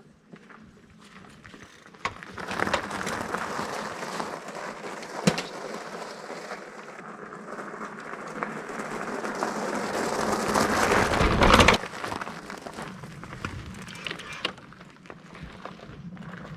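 Riding noise from a fat-tire electric bike being pedalled, with the motor off: a rush of wind and tyre noise that builds as it picks up speed, peaks and drops off near the end. A single sharp click about five seconds in.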